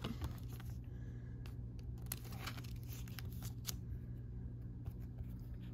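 Faint, scattered rustles and crinkles of a thin plastic penny sleeve as a trading card is slid into it, over a steady low hum.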